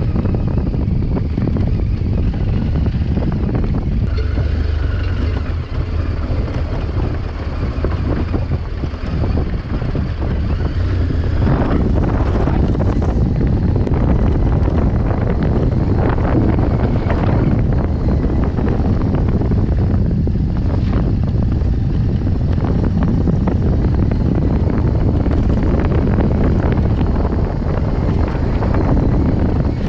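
BMW R1200GS motorcycle under way: its boxer twin engine running steadily, with heavy wind noise buffeting the microphone.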